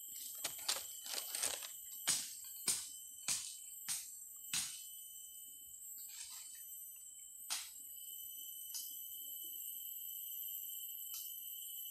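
Steady high-pitched drone of insects, with a run of about eight sharp knocks at roughly two a second over the first few seconds and a few single knocks later, from hand work on the wooden stakes of a deer snare.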